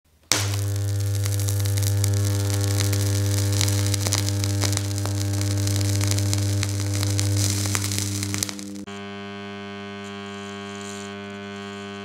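Modified microwave oven transformer with its thick secondary short-circuited through clamps: a loud, steady mains hum with crackling and sizzling from the arcing clamp contacts. After about eight and a half seconds the hum drops to a quieter, buzzier tone.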